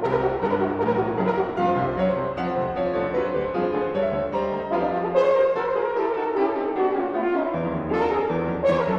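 French horn playing a held melodic line with piano accompaniment, in a concert hall's reverberant acoustic.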